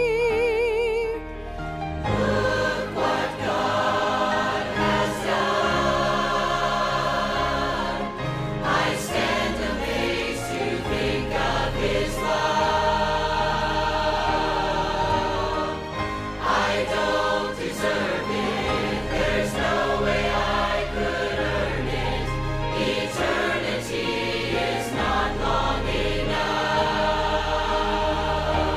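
Large church choir singing a gospel song with accompaniment. About a second in, a woman soloist's held note, wavering with vibrato, ends, and the full choir carries on.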